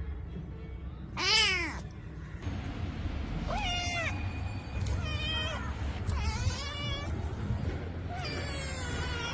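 A domestic cat meowing five times in separate calls, the first and loudest falling in pitch.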